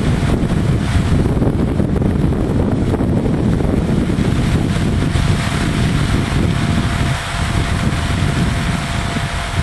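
Wind buffeting the microphone: a loud, gusting low rumble. A faint steady hum joins about halfway through.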